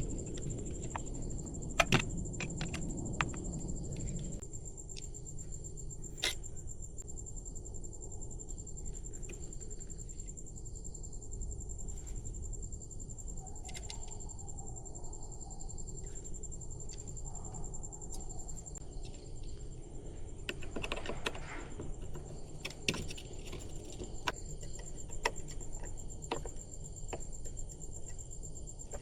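Small metal parts of a hand-built electric doorbell clinking and clicking as they are handled, with a few sharp taps scattered irregularly throughout.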